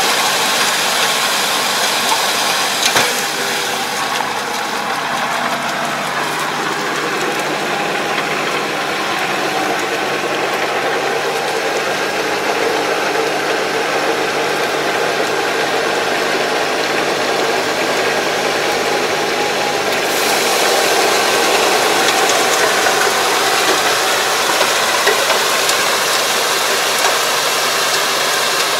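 Diesel tractor engine running steadily under load as it drags a rear drive harrow through a flooded rice paddy, puddling the mud, with a steady noisy hiss over the engine hum. A single brief knock about three seconds in.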